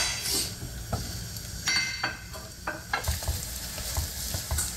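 Hotteok frying in oil in a nonstick pan, sizzling, with several short knocks and scrapes of a wooden spatula against the pan as the pancakes are pressed flat.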